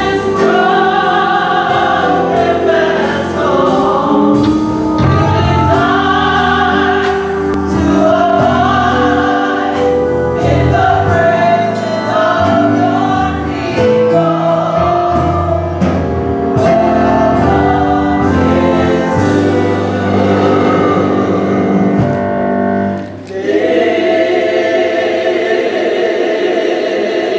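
Gospel choir singing with a band accompaniment and a steady beat. About 23 seconds in there is a brief break, then the choir holds a final sustained chord that cuts off near the end.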